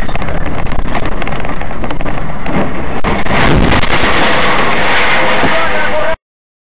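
Loud dashcam recording of a moving vehicle: engine and road noise with a constant rattle, which turns harsher and hissier about three seconds in. It cuts off abruptly near the end.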